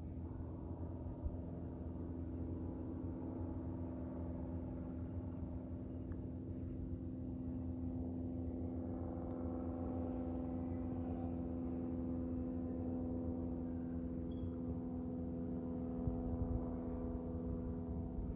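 Cessna L-19 Bird Dog's six-cylinder Continental O-470 piston engine and propeller droning steadily as the plane flies over, growing a little louder over the first several seconds and then holding.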